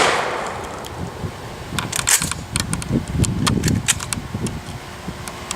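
The reverberation of a shotgun shot dies away at the start, then a series of sharp clicks from about two to four seconds in, typical of a shotgun being opened and reloaded, over low wind buffeting on the microphone from a stiff crosswind.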